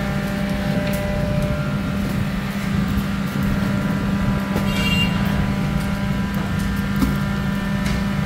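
Steady mechanical hum of an electric pedestal fan blowing over a charcoal bed, with a few light knocks as clay pots are set down on the coals.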